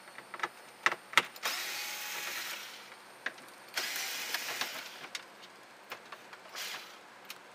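Cordless screwdriver running in two spells of about a second each, backing out the two T20 Torx screws from the dash trim, with a brief third burst near the end. A few sharp clicks of the bit and trim come before and between.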